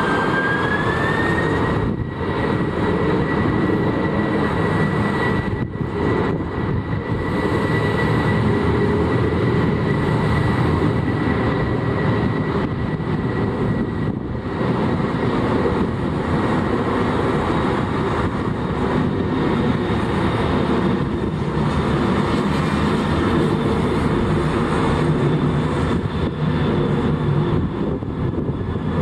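Jet airliner taking off, its engines at takeoff power: a loud rumble with a high whine that rises in pitch near the start and then holds steady.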